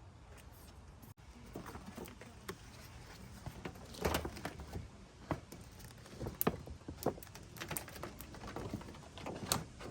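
Irregular clicks, taps and light knocks of hands handling parts inside a car door, with the door's trim panel off.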